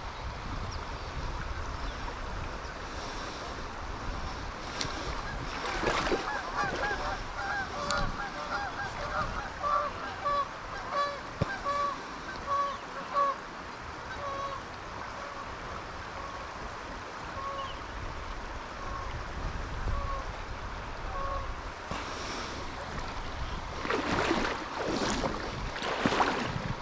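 Geese honking, a long series of calls that grow sparser and fainter, over the steady rush of river water. A few brief noisy sounds come near the end.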